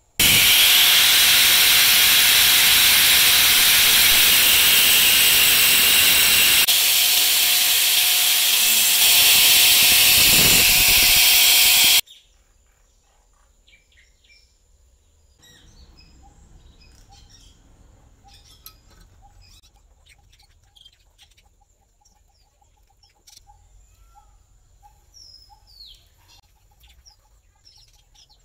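A power tool running steadily on a steel block clamped in a vise: a loud whir with a hiss and a steady hum, cutting off suddenly about twelve seconds in. After it stops, birds chirp faintly, with light metal clicks.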